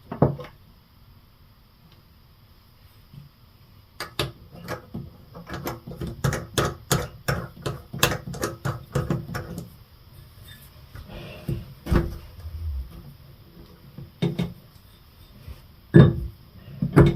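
Clicks and knocks of faucet parts being handled and pushed back into a Delta bathroom faucet body. They come in a quick irregular run for several seconds, then only now and then.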